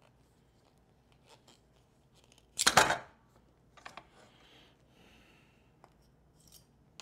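Small handling noises of turned pen blanks and bushings being slid off a metal pen mandrel: a louder scraping rub about two and a half seconds in, then lighter rustles and a few short clicks.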